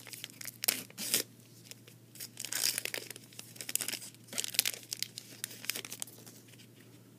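Glossy trading cards being slid and flipped through by hand: irregular papery swishes and rustles of card stock rubbing card stock, over a steady low hum.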